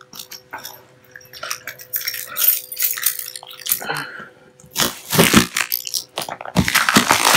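Cardboard shipping box being cut open: a blade slitting the packing tape, with scraping and crunching of the cardboard. It comes in irregular scrapes, with two louder bursts about five and about seven seconds in.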